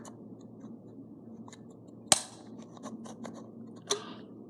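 Scissors striking and prying at the plastic housing of a mini hairdryer: a sharp crack about two seconds in, a smaller one near the end, and a few light clicks between.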